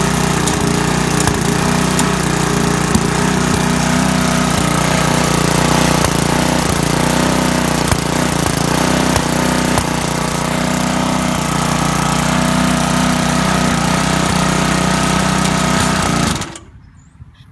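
Briggs & Stratton lawn mower engine running with no blade fitted, a steady drone broken by occasional sharp pops, then stopping abruptly near the end. It is sputtering, a fault that a new carburetor, air filter, fuel and oil have not cured.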